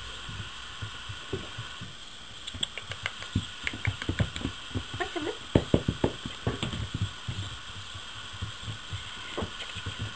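Puppies scuffling and tugging at a rag toy on wood-shavings bedding: a run of quick scratchy knocks and thumps, busiest from about two to seven seconds in.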